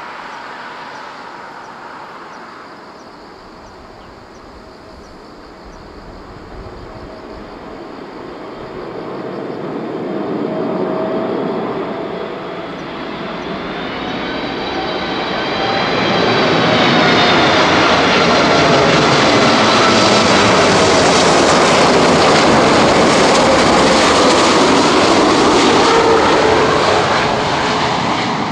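Boeing 747-8F freighter on landing approach, its four GEnx turbofan engines growing louder as it comes in low and passes close. The jet noise carries whining tones that slowly drop in pitch, stays loudest over the last ten seconds and eases slightly at the very end.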